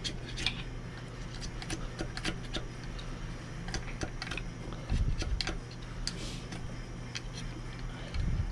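Scraper picking and scraping old intake manifold gasket off the cylinder head of a Crusader 270 marine engine: a busy run of short sharp ticks and scratches of metal on the head. Under it a steady low hum, and two dull thumps, about five seconds in and near the end.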